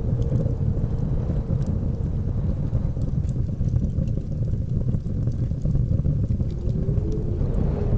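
Blizzard wind with a deep, steady rumble and a faint wavering howl, over scattered small crackles of a wood fire.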